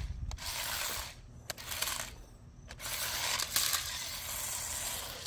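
Toy remote-control tracked stunt car driving in spurts: a noisy, gritty whir of its small motors and plastic tracks that stops and starts, with a pause around two seconds in.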